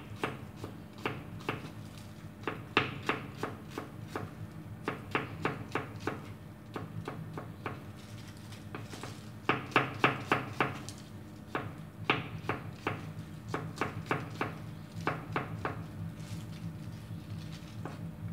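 Cleaver slicing shallots and garlic on a round wooden chopping board: runs of quick knife knocks on the wood, about four a second, broken by short pauses. A steady low hum sits underneath.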